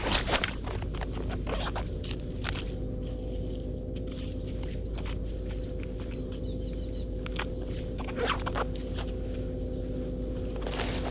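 Scattered clicks, taps and scrapes over a steady low hum, with a small cluster of louder taps near the start and another about eight seconds in.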